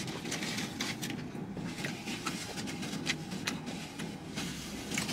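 Paper sandwich wrapper rustling and crinkling in the hands now and then, with chewing, over a steady low hum in a car's cabin.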